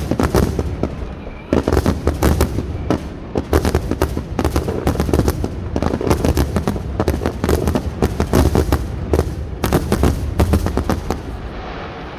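Fireworks finale: a dense, rapid barrage of shell bursts and crackling bangs, with a deep rumble underneath, stopping about a second before the end.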